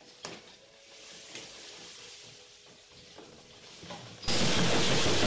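Granulated sugar pouring from a large bag into a plastic water cooler: a soft steady hiss, then about four seconds in a much louder rush of sugar as the bag is tipped fully upside down.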